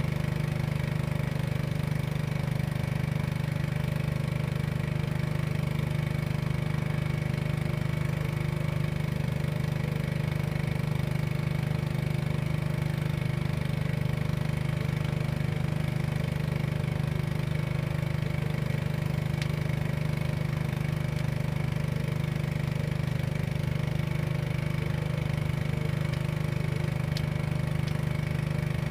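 A small engine running steadily at an even idle speed, with no change in pitch or loudness.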